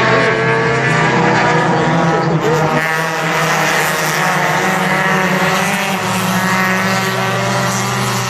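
A pack of mini stock race cars with four-cylinder engines racing past at high revs, several engines running at once and shifting in pitch as they go by.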